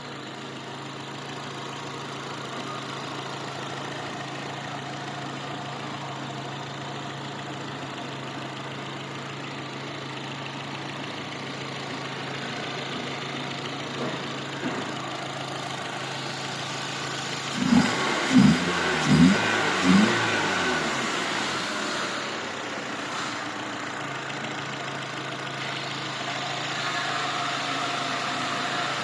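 Renault Twingo's freshly rebuilt 8-valve four-cylinder engine idling steadily, with four quick throttle blips a little over halfway through.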